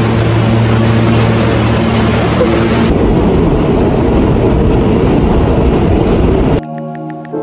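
Subway train noise: a loud, steady rumble with a low hum, first on the platform and then, after a cut about three seconds in, inside the subway car. It breaks off near the end and background music returns.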